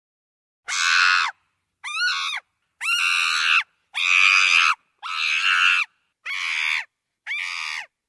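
Chimpanzee screaming: seven short, high-pitched screams in a row, each under a second, with brief silent gaps between them.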